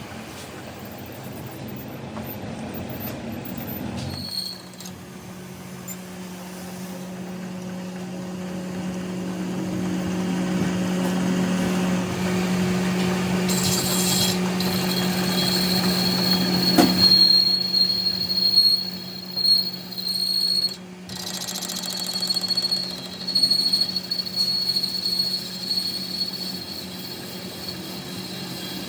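A machine running steadily with a constant hum, and a high-pitched whine joining about halfway through.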